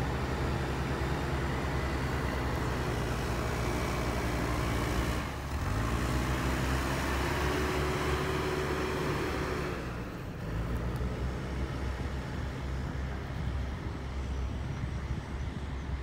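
JCB backhoe loader's diesel engine running. About five seconds in its pitch rises as it revs up and holds there. It drops back and is fainter from about ten seconds on.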